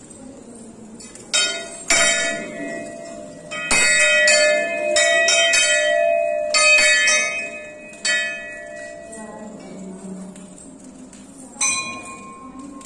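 Temple bell struck repeatedly at irregular intervals during a puja, each strike ringing on. Near the end a bell of a different pitch is struck once.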